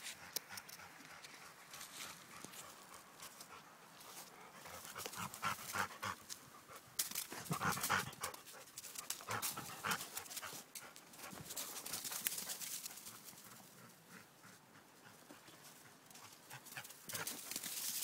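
A dog panting on a walk, with irregular rustling and crunching of steps through frosted leaf litter, busiest in the middle.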